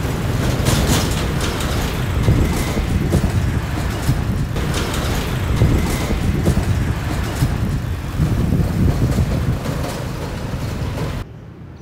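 Road traffic noise: a steady low rumble of passing vehicles, cutting off sharply near the end.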